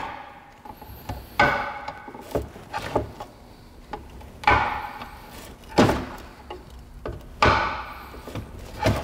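A long metal rod knocking out the spark plug tube seals from an aluminum valve cover: about half a dozen sharp, irregularly spaced knocks, each with a short ring after it.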